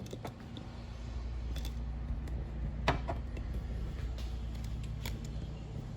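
A few light clicks and knocks from objects being handled, one sharper click about three seconds in, over a steady low hum.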